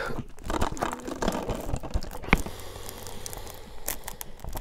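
Plastic wrapping on a Blu-ray case crinkling and tearing as it is picked at and opened, with scattered small clicks and one sharper click about two and a half seconds in.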